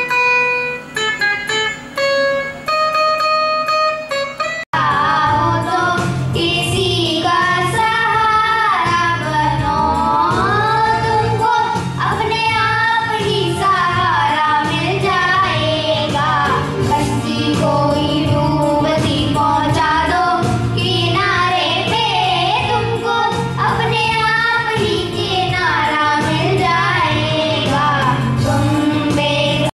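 Acoustic guitar played as single plucked notes, one after another; about five seconds in it breaks off and children sing a song into microphones over instrumental accompaniment with a steady low beat.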